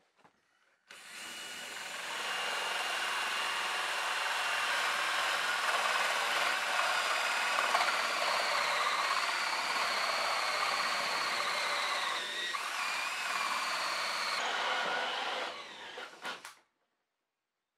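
Cordless drill running a hole saw through a Fermacell gypsum-fibre drywall board, a steady grinding whine. It starts about a second in and cuts off near the end after a few short stutters.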